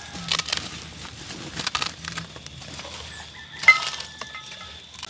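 Scattered sharp clinks and knocks of cooking utensils and pots, a few strikes with the loudest about three and a half seconds in, followed by a short ring.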